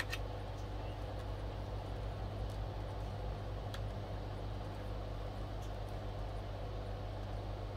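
Steady low hum, with a few faint clicks, one near the start, one about midway and one near the end.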